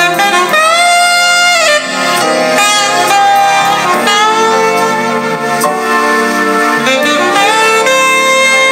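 Saxophone-led jazz playing from a cassette on a Marantz PM326 boombox, heard through its own speakers, with sliding, bent notes and little deep bass. The cassette deck is being tested after repair.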